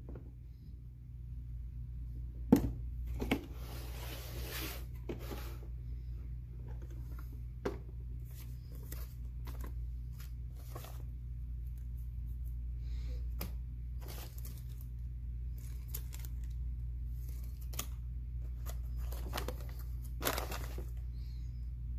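Two sharp snaps as the latches of a hard plastic gun case are flipped open, then rustling and crinkling of a paper manual and brown wrapping paper as they are handled and pulled off a revolver. A steady low hum runs underneath.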